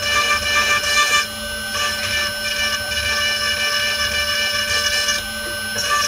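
Desktop CNC mill spindle whining steadily while a 0.2 mm conical engraving bit cuts aluminium. A hissy cutting noise rides over the whine and drops out twice for about half a second.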